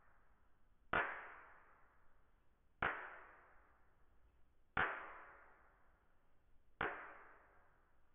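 Four sharp struck hits, evenly spaced about two seconds apart, each ringing and fading away over about a second and a half.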